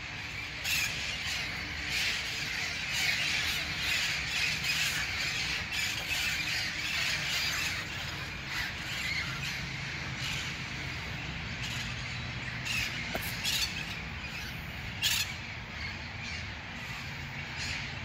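A flock of feral parrots squawking as it flies overhead, with many harsh, short calls overlapping throughout.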